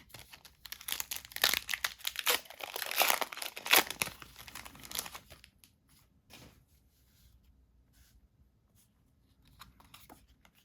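Foil trading-card booster pack wrapper crinkling and being torn open: a dense crackle for about five seconds, then a few faint clicks.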